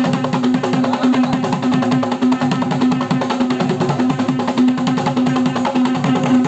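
Music: one steady held tone over a fast, even run of rhythmic strokes.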